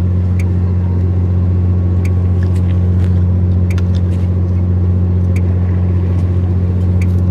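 Fishing boat's engine running steadily, a loud, even low drone. A faint tick recurs about every second and a half over it.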